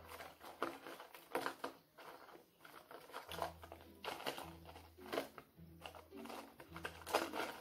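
Close-up eating sounds: soft chewing and mouth clicks, with the crinkle of a paper fast-food box, as scattered small irregular crackles over a faint low hum.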